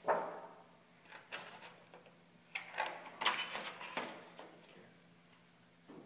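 Scissors cutting a thin metal shim sheet: sharp metallic snips and crinkling as the sheet flexes, one right at the start and a cluster between about two and a half and four seconds in.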